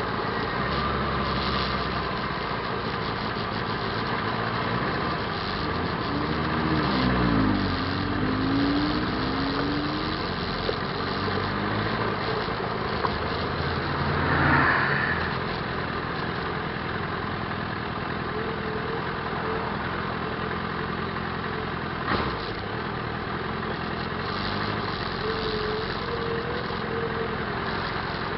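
Motorcycle engine running while riding slowly in traffic, under steady road and wind noise. A little after the start the engine pitch rises as it accelerates. About halfway there is a louder swell as a bus passes close alongside.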